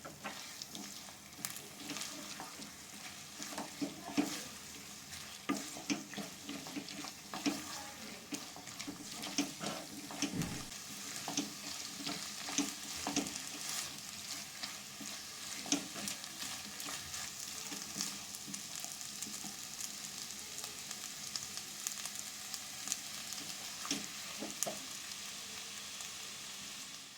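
Food sizzling in a frying pan while a spatula stirs and scrapes it, with frequent short clicks of the utensil against the pan over a steady sizzle.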